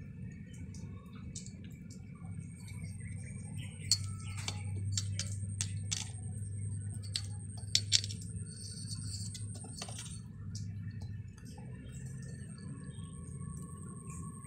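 Scattered light clicks and taps, sharpest about four and eight seconds in, over a steady low hum and a thin high tone that comes and goes.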